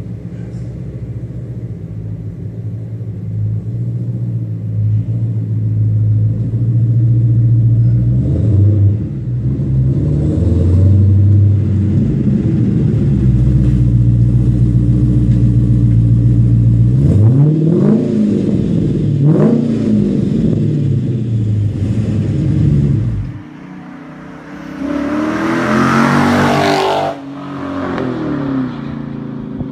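2013 Dodge Challenger SRT8's 6.4-litre Hemi V8 through a Magnaflow exhaust, rumbling steadily and growing louder, then blipped twice in quick revs. After a sudden cut, a 2015 Challenger Scat Pack with the mufflers deleted gives a louder, rasping burst of throttle that rises and falls.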